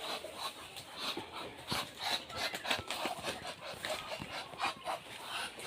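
Poultry flock moving about in the shed: an irregular run of scuffling, scratching and clicking with no steady tone.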